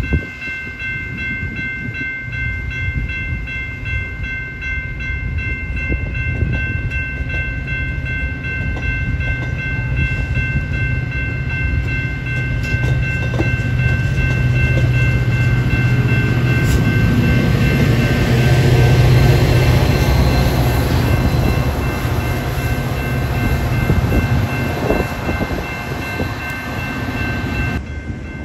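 Metra bilevel commuter cars rolling past on the rails: a steady rumble of wheels on track that swells to its loudest about two-thirds of the way through, over a steady high ringing in several pitches that stops shortly before the end.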